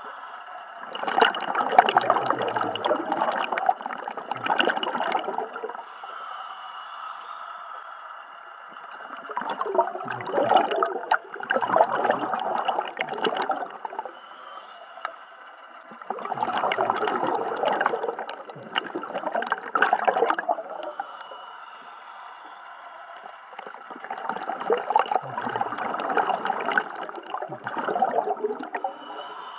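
Scuba diver's exhaled breaths bubbling out of the regulator underwater: four long, gurgling bursts of bubbles, each a few seconds long, at a steady breathing rhythm with quieter pauses between.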